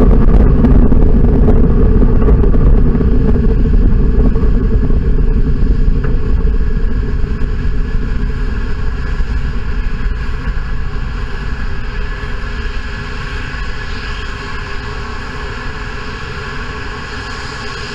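Deep rumble of the Antares rocket's two first-stage RD-181 kerosene engines, heard from beside the launch pad and fading steadily as the rocket climbs away.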